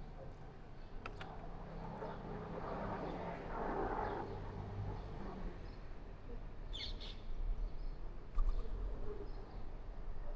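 Small birds chirping: a few faint short chirps, with a clearer pair of high chirps about seven seconds in, over a low steady background rumble.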